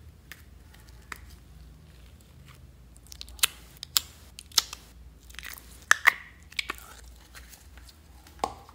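Green metallic slime being poked and squeezed by fingers, giving a series of short, sharp sticky pops and clicks that start about three seconds in and come in quick clusters.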